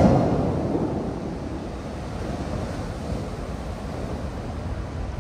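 Bellagio fountain's tall water columns crashing back down into the lake after the jets shut off. The splashing rush fades over the first couple of seconds, then settles into a steady low wash of water.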